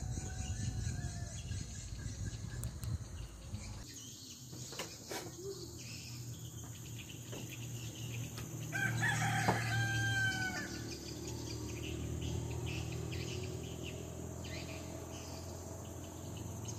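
A rooster crowing: one drawn-out crow of about two seconds, starting about nine seconds in, with a couple of faint knocks a few seconds before it.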